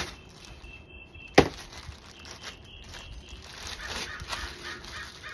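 Thin plastic bag being pulled off a cordless tool battery pack: crinkling and rustling of the plastic, with one sharp snap about a second and a half in.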